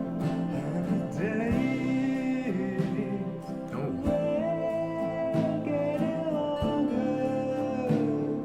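A song playing back: a male voice singing long held notes in a low range over guitar accompaniment.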